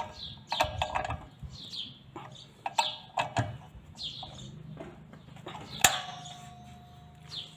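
Metal clicks and clinks of a wrench and blade as a circular saw blade is tightened onto its arbor, one knock near 6 seconds in ringing briefly. Small birds chirp repeatedly in the background.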